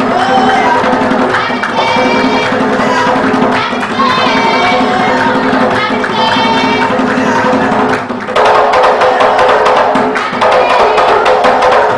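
Somali niiko dance music: a hand drum beaten in fast, dense strokes over sustained tones, with a high wavering melody line in the first half. About eight seconds in, the music gets louder and fuller.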